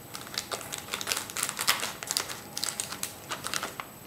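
Scissors snipping through a plastic candy-kit wrapper, with the film crinkling as it is cut and handled: a quick, irregular run of small clicks and crackles.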